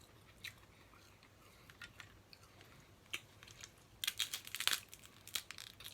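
Snow crab leg shells being cracked and snapped apart: scattered sharp clicks, then a quick run of crackling snaps about four seconds in.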